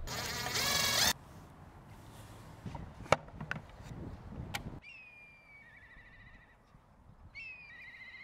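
A small screw being driven into a metal box-corner bracket with a scraping squeal for about a second, then sharp clicks and knocks as the wooden box and its metal latch are handled. After about five seconds, a songbird sings twice, each song a falling whistle running into a quick trill.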